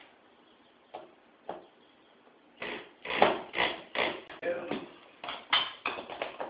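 Installation work on a metal door brace: two light clicks, then from about two and a half seconds in a rapid, irregular run of knocks and clatter.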